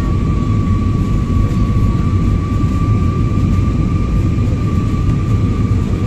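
Jet airliner cabin noise during the climb after takeoff: the engines and airflow make a steady low rumble with a thin steady whine above it, heard from a window seat inside the cabin.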